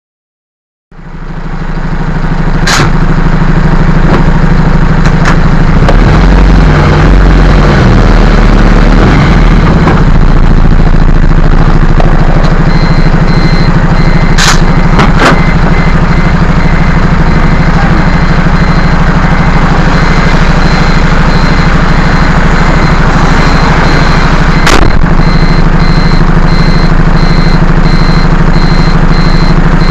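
Heavy vehicle's engine idling loudly and steadily, heard from inside the cab, with a few sharp clicks. From about 13 seconds in, an electronic warning beep repeats at an even pace.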